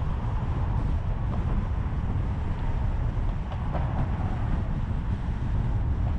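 Steady low rumble of a car driving on city streets, heard through a camera mounted on the outside of the car: road, tyre and wind noise with traffic around it.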